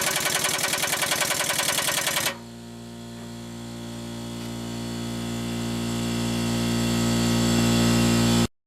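Impact wrench hammering rapidly on a seized crank pulley bolt without breaking it loose, stopping about two seconds in. A steady mechanical hum follows, slowly growing louder, and cuts off suddenly near the end.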